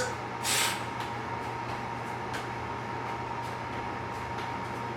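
Steady low room hum, like a fan or air conditioner, with one short hiss about half a second in and a few faint ticks.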